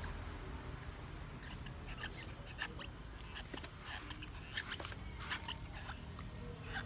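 Baby macaque making short, scattered high squeaks and small mouth clicks while sucking on a milk bottle.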